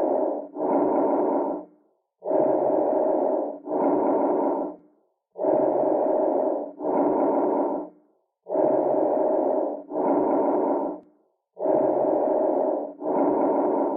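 Bronchovesicular breath sounds heard on lung auscultation: a breath about every three seconds, each an inhalation and an exhalation of about equal length heard as a rushing noise, with a brief gap between them and a longer pause before the next breath.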